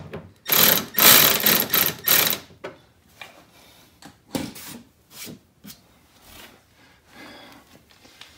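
Milwaukee M12 cordless ratchet running in several short rattling bursts over about two seconds, driving a screw home. A few scattered clicks and knocks follow.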